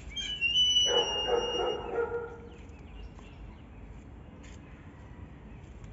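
An animal call: a high whistling note held for about a second and a half, joined about a second in by a louder, rougher, lower call.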